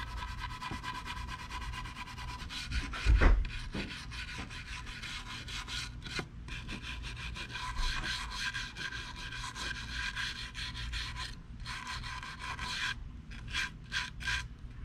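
Small brass-bristle brush scrubbing chemically softened paint and old finish off wood veneer: a fast, scratchy back-and-forth with a few short pauses. A single low thump about three seconds in.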